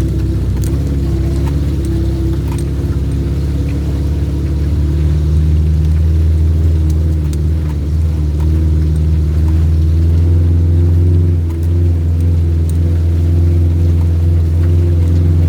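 Off-road 4x4 engine running steadily under load on a rough trail, a low drone that grows a little louder about five seconds in, with a few light knocks over it.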